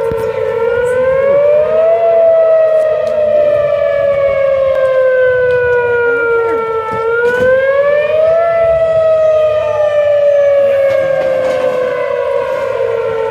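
Outdoor tornado warning siren wailing. Its pitch rises quickly, then falls slowly, in cycles about six and a half seconds long.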